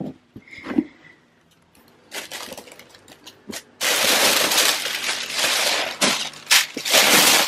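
Tissue paper rustling and crinkling as hands pull it back inside a gift box. It is loud and continuous from about four seconds in, after some softer rustling.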